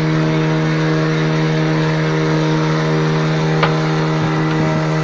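A boat engine running steadily at cruising speed, a constant hum over the rush of wind and water, with a brief click about three and a half seconds in.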